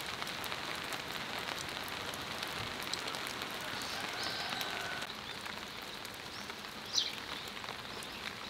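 Steady rain falling, with many individual drops ticking on a surface, and a brief high chirp about seven seconds in.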